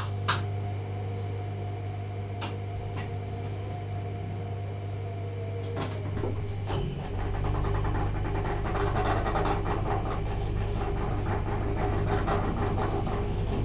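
Electric multiple unit heard from its cab: a steady hum of the standing train's electrical equipment with a few sharp clicks, then about seven seconds in a deeper hum comes in and grows as traction power is applied and the train begins to pull away.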